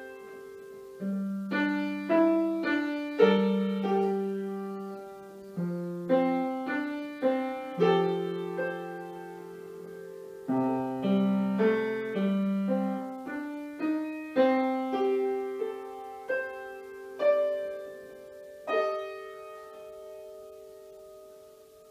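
Grand piano playing an unhurried, jazzy blues piece: chords and melody notes struck and left to ring. The last chord comes about nineteen seconds in and is held as it fades away, ending the piece.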